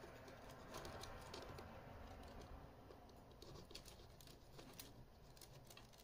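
Near silence with faint scattered clicks and scratches: small handling noises of a swab stick and fingers working the tape and plastic parts inside an opened VHS cassette shell.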